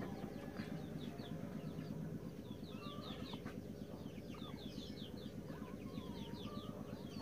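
Small birds chirping in the background: many short, high, falling chirps in quick runs, with a few lower calls, over a low, fast, even pulsing.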